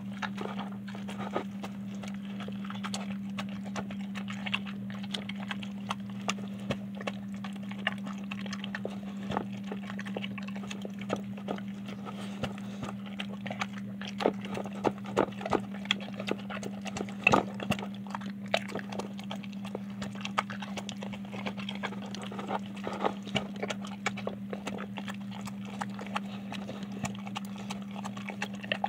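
Dog eating soft rice, beans and chicken from a bowl: irregular wet chewing, smacking and lapping clicks, a few louder ones about halfway through. A steady low hum runs underneath.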